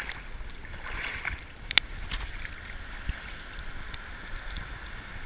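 Sea water washing and swirling around shoreline rocks as a steady rush, with one sharp knock just before two seconds in.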